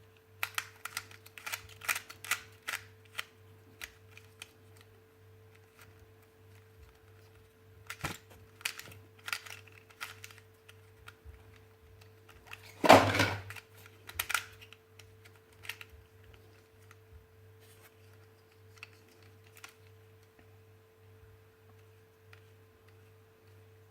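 Scattered clicks and taps of objects being handled during an unboxing, busiest in the first few seconds, with one louder knock about halfway through. A steady low electrical hum runs underneath.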